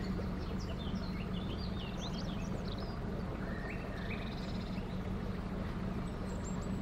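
Songbirds chirping and trilling over the steady low hum of a narrowboat's diesel engine running as the boat cruises.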